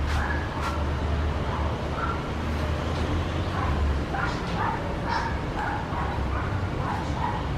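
Young macaw calling: a run of short, rough calls that come more often in the second half, over a steady low rumble.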